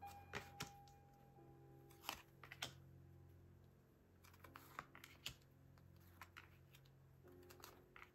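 Near silence: faint, slow background music with long held notes, and scattered light taps and clicks of tarot cards being handled and set down on a table.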